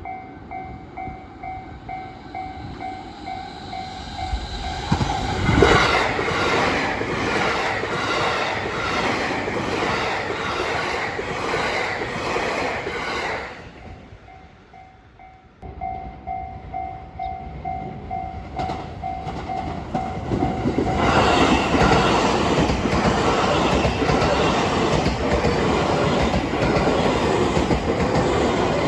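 Japanese level-crossing warning bell ringing in even, repeated electronic dings, then a train passing over the crossing with rhythmic clickety-clack of wheels over rail joints. After a sudden break, the bell dings again and another train passes with the same joint clatter.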